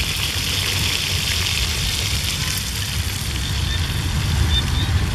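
Hot oil sizzling steadily in a metal wok as small animals fry over an open wood fire, over a low rumble.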